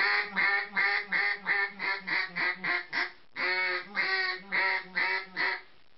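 A hand-blown custom duck call sounding a run of about ten quacks that get shorter and quicker, then after a short break about three seconds in, five longer quacks. The tone is less raspy than his first call's but still full.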